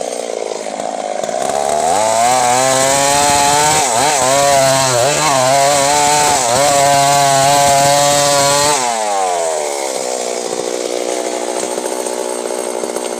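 Stihl MS 382 two-stroke chainsaw revved from idle to full throttle, held high for about seven seconds with a few brief dips in pitch, then let back down to a steady idle.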